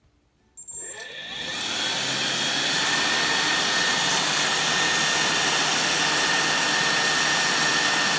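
A 3D-printed electric ducted fan, driven by a small 1700 kV brushless motor, spins up from rest about half a second in, its whine rising for a second or so, then runs steadily with a loud rushing noise and a high whine.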